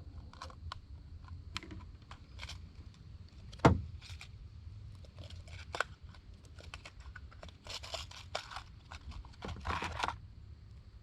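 Fishing tackle being handled in a kayak: scattered small clicks and rustles, with one louder knock about four seconds in and longer rustling stretches near the end, as a soft plastic worm is picked out and rigged.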